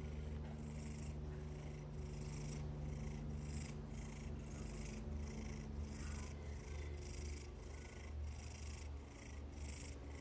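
A domestic cat purring close to the microphone, a faint, steady low rumble that swells and fades in an even rhythm of about one and a half breaths a second.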